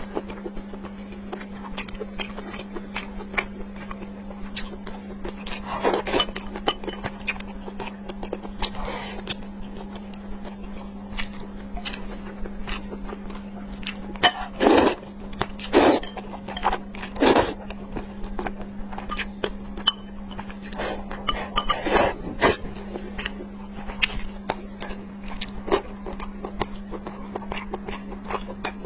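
Close-miked eating of red-braised pork stewed with glass noodles: chewing and mouth sounds with many small clicks, and a few louder noisy bursts around the middle, over a steady low hum.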